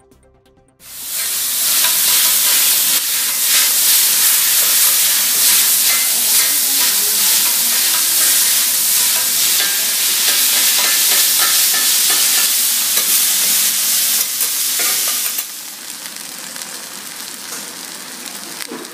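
Yakisoba noodles and cabbage sizzling loudly on a flat iron teppan griddle while being stir-fried with two metal spatulas that scrape and clatter on the plate. The sizzle starts suddenly about a second in and drops to a quieter sizzle near the end.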